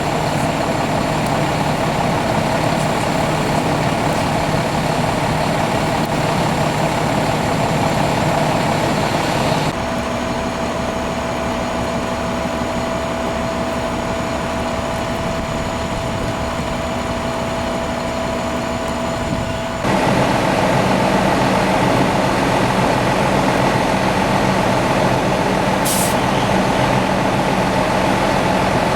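Fire trucks' engines running steadily, a constant drone with a few steady tones that changes character abruptly twice, about ten and twenty seconds in.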